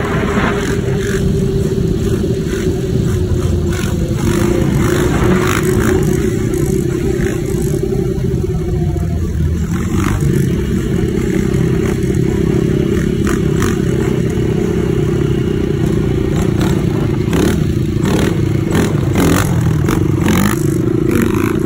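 ATV engine running hard at fairly steady revs, with scattered short clattering knocks over it.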